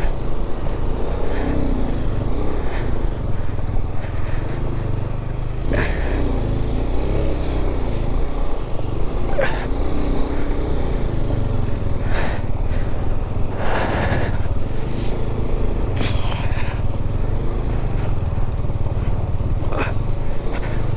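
KTM 390 motorcycle's single-cylinder engine labouring up a rough, rocky off-road climb, its pitch rising and falling with the throttle. Several sharp knocks and clatters come through it, from stones striking the bike on the rocky ground.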